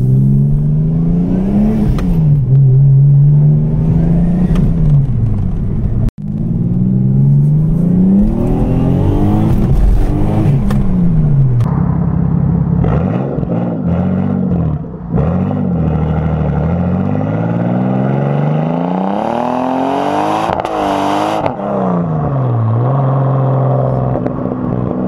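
Toyota 2JZ-GTE VVT-i twin-turbo straight-six in a 5-speed car pulling hard through the gears, its pitch climbing and dropping back again and again with each shift, with the highest, longest climb near the end. Heard from inside the cabin at first, then close to the exhaust tip from about six seconds in.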